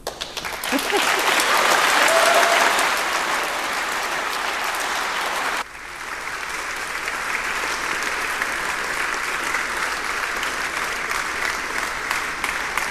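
Audience applauding. The clapping is loudest in the first few seconds, dips suddenly about halfway through, then goes on steadily.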